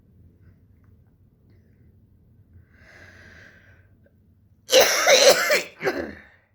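A young woman coughing: a quiet breath in, then a loud cough lasting about a second, and a shorter second cough right after it.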